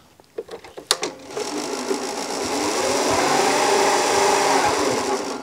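A few clicks, then the electric motor and spinning cutting reel of a Toro eFlex battery-powered reel mower, fitted with a groomer unit, start up: a steady whirr that rises in pitch, levels off and eases slightly, then cuts off suddenly.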